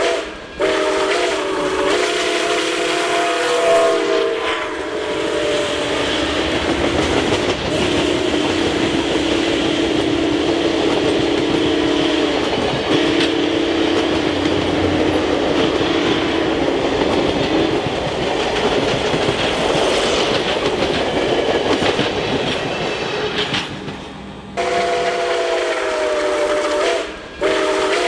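Nickel Plate Road 765, a 2-8-4 Berkshire steam locomotive, blowing its whistle, several notes at once, for the first couple of seconds. Then the locomotive and a string of passenger cars roll past close by with loud, steady wheel-and-rail clatter. The whistle sounds again for the last few seconds.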